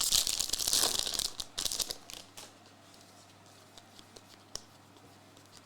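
Plastic trading-card pack wrapping and cards being handled, crinkling and rustling for about two seconds. Then near quiet with a few faint clicks.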